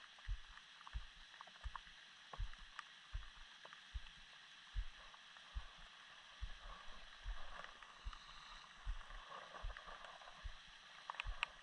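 Heavy thunderstorm rain hissing steadily, with frequent dull low thumps and scattered small ticks of drops.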